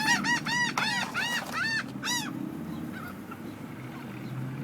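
A flock of gulls calling in a quick series of sharp, arching cries, about three a second, that stops a little over two seconds in, leaving a low steady hum.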